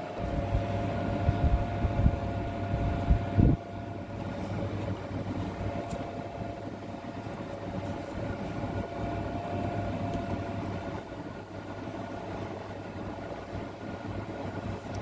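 Steady machine hum with a constant whine, and a few knocks in the first few seconds; a deeper hum under it cuts off about three and a half seconds in.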